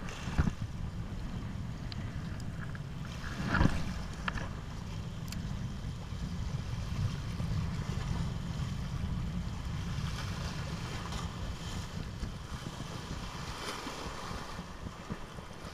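Wind buffeting the microphone over lapping sea water, a steady low rumble with one brief louder rush about three and a half seconds in.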